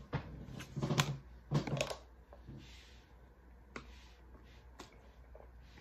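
Clicks and knocks of items being handled close to the microphone, several in the first two seconds, then quieter with a few faint clicks.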